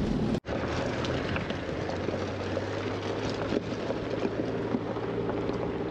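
Toyota Land Cruiser HZJ79's 4.2-litre six-cylinder diesel running steadily as the truck drives on a rough track, with road noise, after a brief break in the sound about half a second in.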